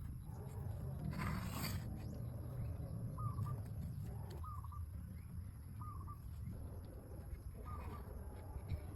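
A bird giving short, similar chirps every one to two seconds over a low steady rumble, with a brief rustle about a second in.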